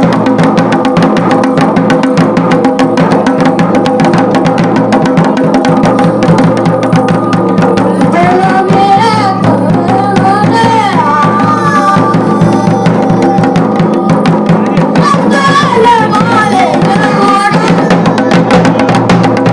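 Garhwali dhol drumming in fast, continuous strokes over a steady held drone. From about eight seconds in until near the end, a wavering melody rises and falls above the drumming.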